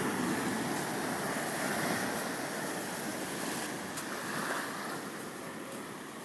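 Ocean surf washing up the shore, a steady rush that is loudest in the first couple of seconds and slowly eases off.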